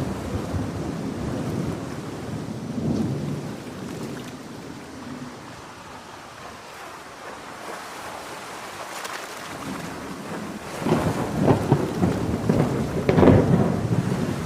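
Heavy rain falling steadily under rolling thunder. The thunder eases off mid-way, then builds back to its loudest rumbles in the last few seconds.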